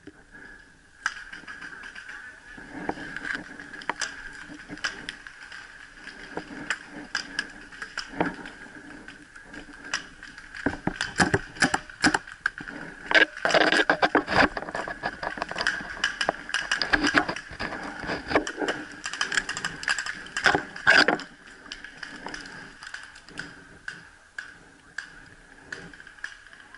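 Paintball markers firing in scattered pops and quick bursts, thickest from about eleven to twenty-one seconds in, with a steady high-pitched hum underneath.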